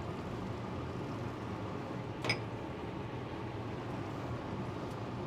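Steady low hum with an even hiss, and one light clink a little over two seconds in.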